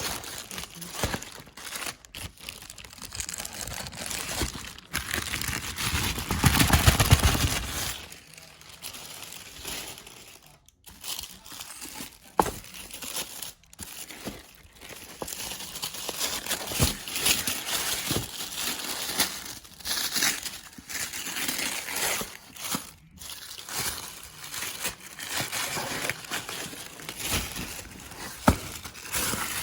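Packaging crinkling and rustling as it is handled and pulled open, with a louder stretch of handling noise about six to eight seconds in.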